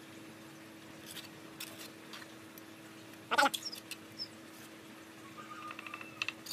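Bricklaying sounds: light taps and scrapes of clay bricks being handled and set, with one sharp ringing clink of hard brick being struck about three and a half seconds in. A steady low hum runs underneath.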